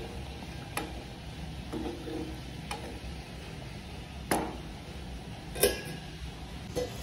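Spatula stirring curry in a pan, with about six knocks and scrapes against the pan, two of them louder in the second half, over a steady low hum.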